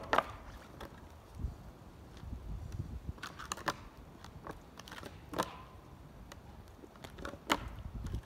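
Sharp knocks and clacks of a snowboard striking the frozen lake's ice: a loud one at the start as the rider lands a jump, then several more scattered through as he shifts about on the board. There is a low background rumble throughout.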